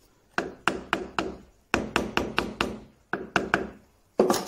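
A hammer tapping a glued-on piece of a mahogany sleigh-bed end, seating it onto the joint: quick sharp taps in runs of four to six with short pauses, the last run the loudest.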